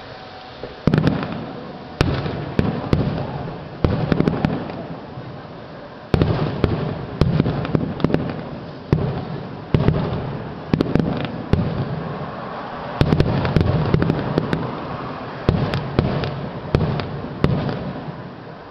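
Fireworks display: a rapid series of aerial shell bursts, each a sharp bang followed by a rumbling decay, often overlapping, starting about a second in.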